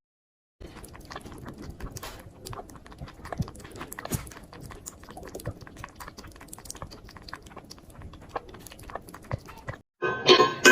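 Quiet sounds of a small pet animal moving about, with many soft, irregular clicks and taps.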